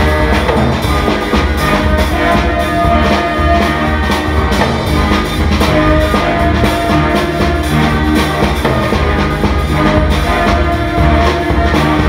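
Ensemble music: drums beat steadily under sustained notes from violins and other pitched instruments.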